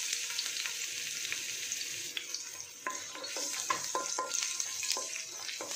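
Chopped garlic sizzling in hot oil in a stainless steel wok, a steady high hiss. From about three seconds in, a wooden spatula stirs it, knocking and scraping against the wok with brief ringing taps.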